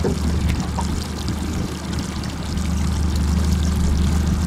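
Water pouring and trickling over a steady low mechanical hum from the boat.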